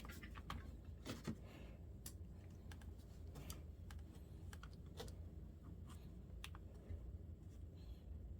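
Faint, irregular small clicks and taps of hands working on a laptop's plastic case, a few clicks a second at uneven spacing, over a low steady hum.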